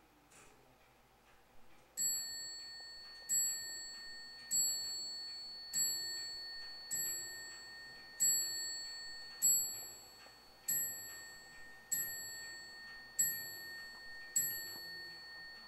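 Antique French mantel clock striking the hour on its bell: eleven evenly spaced strokes about a second and a quarter apart, each ringing on and fading, starting about two seconds in, over the steady ticking of the movement.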